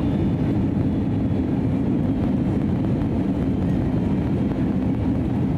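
Cabin noise of an Airbus A320neo in flight: a steady low rumble of airflow and engines, with no change in level.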